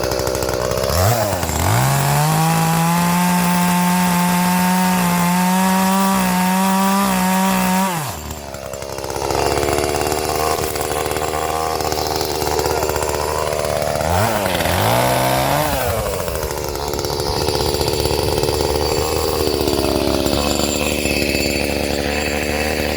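Two-stroke chainsaw revved up about a second in and held at high speed for some seven seconds, then dropping back to idle. It is revved again briefly about two-thirds of the way through, then runs unevenly at lower speed.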